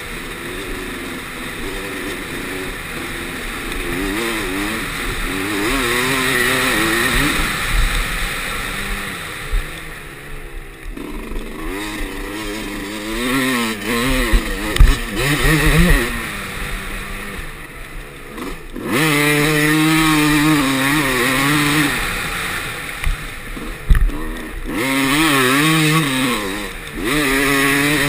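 Dirt bike engine revving up and down again and again as it is ridden around a motocross track, heard over wind noise on a helmet-mounted camera. The throttle is shut off briefly several times, and there are two sharp thumps, one about halfway through and one later on.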